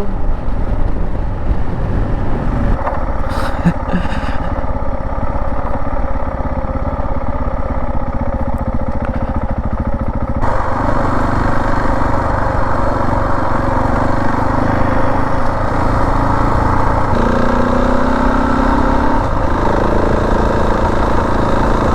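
Husqvarna 701 Enduro's single-cylinder engine running as the bike rides along. Its sound steps up about halfway through, and later the engine revs up briefly.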